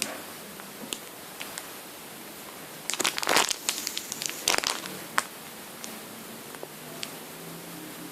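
Crinkling and crackling as a cupcake-shaped squishy toy is squeezed and handled, in two short bursts about three and four and a half seconds in, with a few scattered ticks between.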